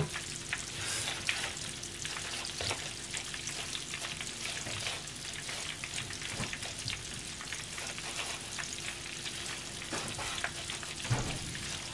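Hot oil in a frying pan sizzling and crackling steadily as food deep-fries, with a faint steady hum underneath.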